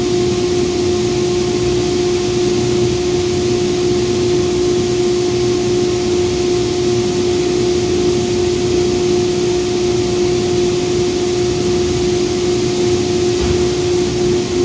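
Chinook hay dryer's heated-air blower running: a steady rush of air with a constant hum.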